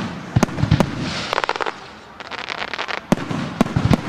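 Aerial fireworks going off: several sharp bangs, a pair near the start and a cluster about three seconds in, with hissing and crackling of burning stars between them.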